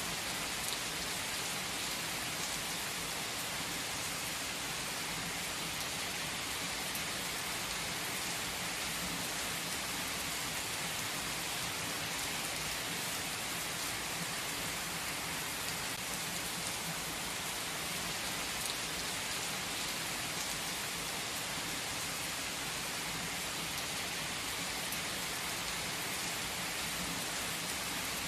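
Heavy rain pouring down on asphalt and parked cars: a dense, steady hiss that never lets up.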